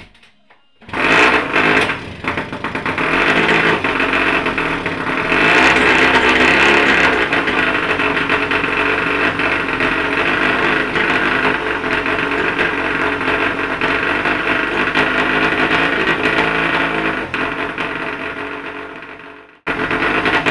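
A 1929 Scott TT Replica's two-stroke twin engine, cold and freshly rebuilt at the top end, fires about a second in and keeps running, revving up a few seconds later. The engine is not yet run in. Near the end the sound cuts out for a moment and comes straight back.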